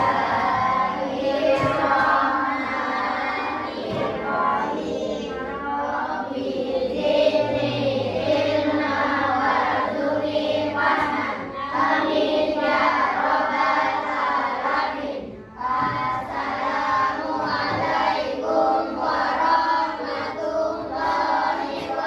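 A class of schoolchildren chanting a prayer aloud together in unison.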